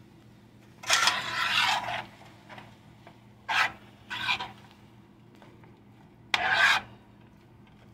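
A metal utensil scraping across a frying pan while stirring shrimp and vegetables: four scraping strokes, the first and longest about a second in, the last near the end.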